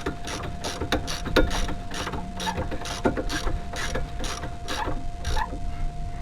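Hand ratchet wrench clicking in even strokes, about three clicks a second, as a brake caliper carrier bolt is run in by hand.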